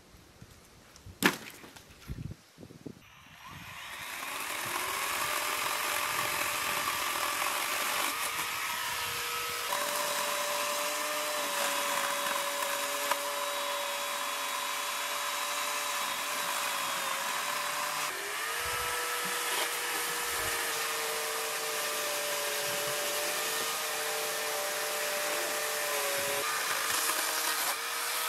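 A motor-driven machine starting up about three seconds in and running steadily under load, with a hissing noise and a hum that shifts in pitch a few times, then stopping just before the end.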